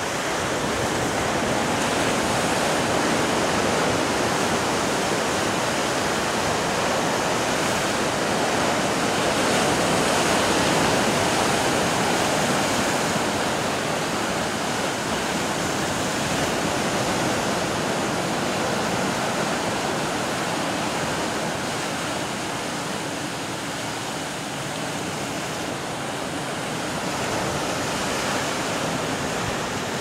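Caribbean Sea surf breaking against a rocky shoreline: a continuous rushing wash of waves and foam that swells about ten seconds in and eases for a while later on.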